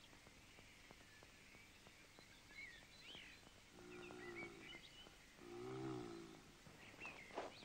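A bear growling twice, two low wavering growls each under a second long about a second apart, over faint birdsong.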